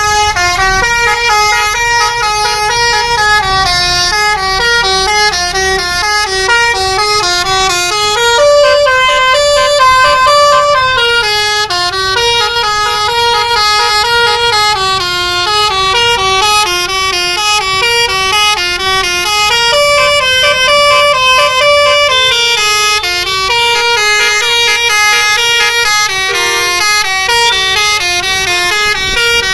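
Indonesian bus 'telolet' musical horn playing a long, unbroken melody of loud, stepped notes, one note after another, held on continuously.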